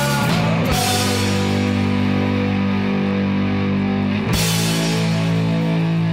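Rock band playing: distorted electric guitar holding long sustained chords over drums, with a crash near the start and another about four seconds in, where the chord changes.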